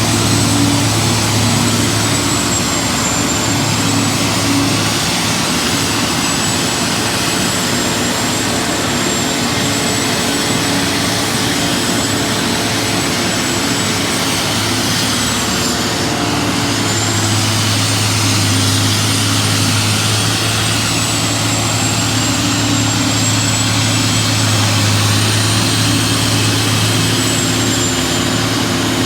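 Truck-mounted Haybuster tub grinder running steadily while grinding hay bales: a constant low engine note with a dense grinding noise over it. The engine note weakens for a few seconds around the middle and comes back stronger, and a thin high whine wavers in pitch throughout.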